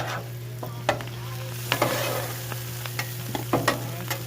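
Brussels sprouts and bacon frying in bacon grease on a Blackstone 22-inch Adventure Ready griddle, with a spatula scraping and clacking on the steel cooktop several times as they are stirred. A steady low hum runs underneath.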